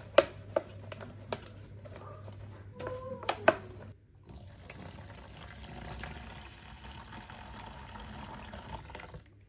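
A few sharp knocks of a tint brush against a plastic tub as hair dye is stirred, then from about four seconds in a steady splashing pour of hot water into the tub of dye.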